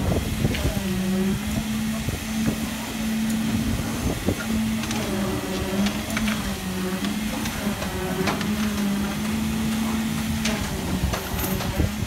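Concrete vibrator running in a freshly poured footing, its drone stepping down in pitch as the head is pushed into the concrete and back up as it is lifted, over and over. Short scrapes and knocks of hand tools working the concrete come through now and then.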